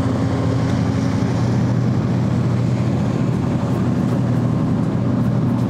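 Hukkelburg workboat running at high speed: its engines give a steady, loud drone over the rushing hiss of its hull and wake.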